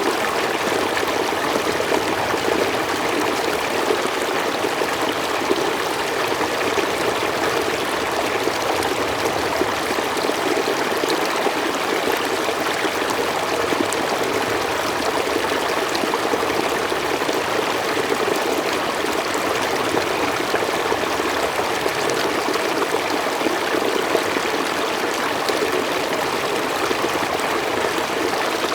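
Stream water running and splashing over rocks, a steady rushing with a fine trickling on top.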